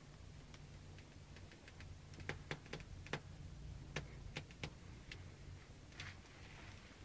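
Faint, irregular sharp clicks and taps over a low steady hum.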